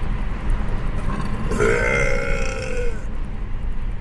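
A woman belching once, a drawn-out burp of about a second and a half whose pitch sags slightly toward the end, over a steady low rumble.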